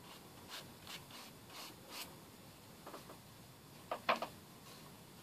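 A flat watercolor brush rubbing and swishing across watercolor paper as a light blue sky wash is laid in, in a series of soft strokes, with a few sharper, louder strokes about four seconds in.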